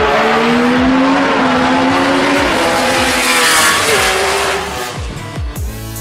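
A Matra V12 Formula One race car driving at speed, its high engine note climbing steadily through the revs. It passes close about three and a half seconds in, then the pitch drops as it moves away. Electronic music comes in near the end.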